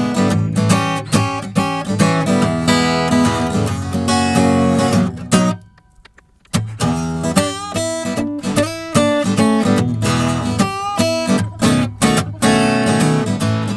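Background music led by strummed acoustic guitar, breaking off for about a second midway before starting again.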